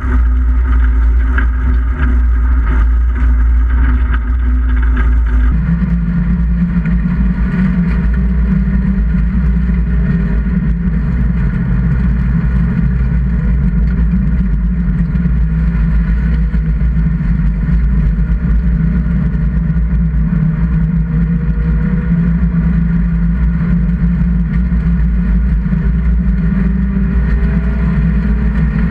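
Engine of a 1600 cc class jokkis race car running hard, heard inside the stripped cabin while driving on the ice track. The note changes abruptly about five seconds in, then holds steady with a slight rise near the end.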